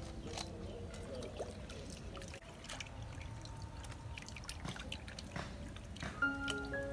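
Water trickling and pouring, with scattered light knocks and drips. Background music comes back in near the end.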